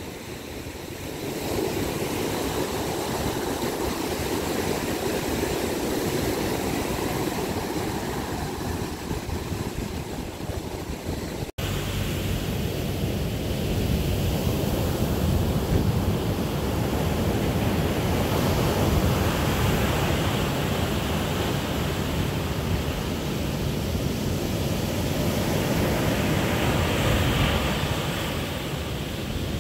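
Sea surf breaking and washing up a sand beach, a steady rushing that swells and eases as each wave comes in, with a brief dropout about halfway.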